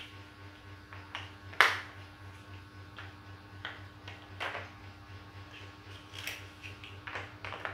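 Large plastic building blocks clicking and clacking as they are handled and pressed together, a series of irregular sharp taps, the loudest about one and a half seconds in.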